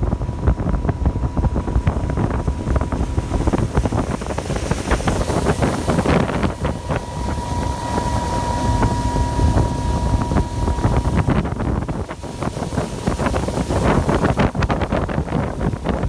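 Heavy wind buffeting the microphone on a bass boat running at speed, with its Mercury outboard motor running underneath. A faint steady whine is strongest about halfway through.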